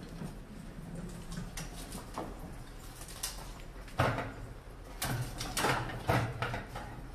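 Homemade bucket mouse trap in action: faint scratching of mice, then four sharp plastic clacks in quick succession from about four seconds in as the hinged plastic flaps tip under the mice and swing back.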